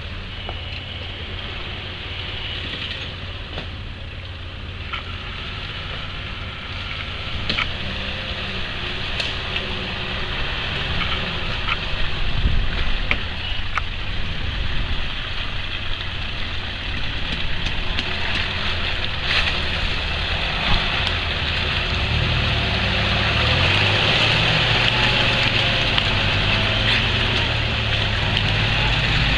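Off-road SUV's engine running as it crawls through deep mud toward the listener and passes close by, growing steadily louder, with tyres hissing and splashing through the muddy ruts and a few sharp clicks along the way.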